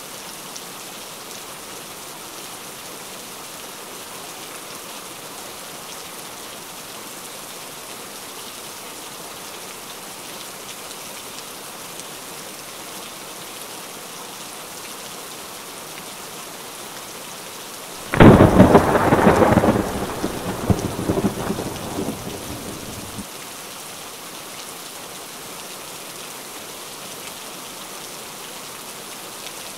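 Steady rain falling, a constant hiss, broken about two-thirds of the way in by a sudden loud peal of thunder that rumbles away over about five seconds.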